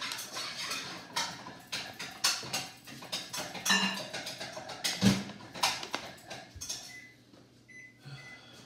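Printed paper packaging rustling and tearing as it is pulled open by hand: an irregular run of crinkles and rips, with one sharp knock about five seconds in.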